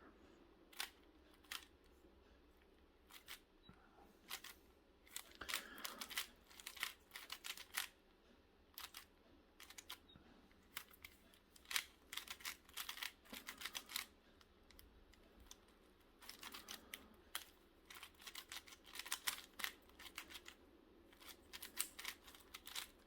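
4x4 Rubik's cube being turned by hand: short plastic clicks and clacks as its layers snap round, sparse at first, then in quick runs with brief pauses.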